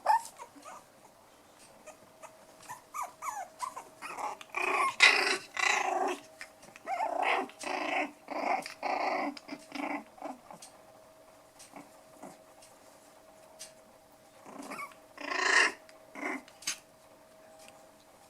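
Five-week-old toy poodle puppies growling at play in short bursts, a run of them from about four to ten seconds in and another brief flurry near the end, with small scrabbling clicks in between.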